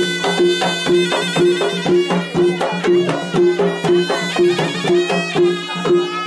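Malay silat music played live: a serunai plays a reedy, wavering melody over a steady beat of two gendang drums, about two strokes a second.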